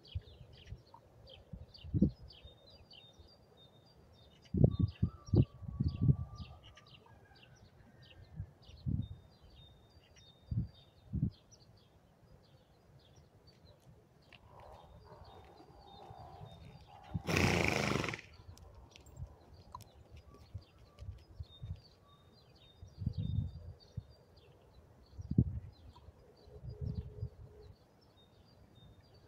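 A horse blowing out a single loud, noisy snort about two-thirds of the way through, over small birds chirping repeatedly. Scattered low thumps come and go.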